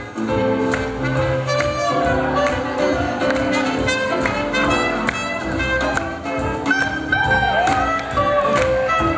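Live swing jazz band playing, horns carrying the tune over an even beat of about two strokes a second.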